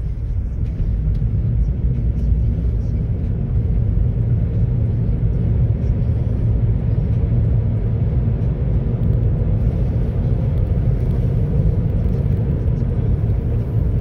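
Steady low rumble of road and tyre noise heard inside a moving car's cabin, growing a little in the first second as the car picks up speed from a crawl.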